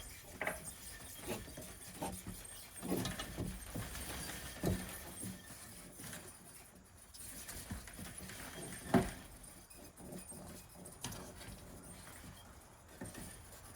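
Scattered knocks and clicks from handling a greenhouse door and its hinge fittings, with one sharper, louder knock about nine seconds in.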